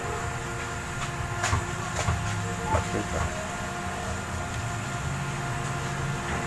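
Steady low hum with a few faint clicks of multimeter probes being set on the output transistors' legs to check bias voltage.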